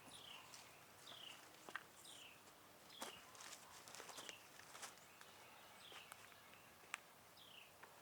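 A bird calling over and over, a short high falling note roughly once a second, faint over quiet outdoor background, with a few sharp clicks and knocks.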